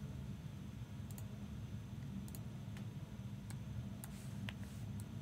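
A few sparse, light clicks, roughly one a second, over a steady low hum.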